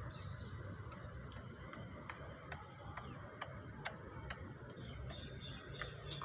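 A steady series of sharp ticks, evenly spaced at a little over two a second, starting about a second in.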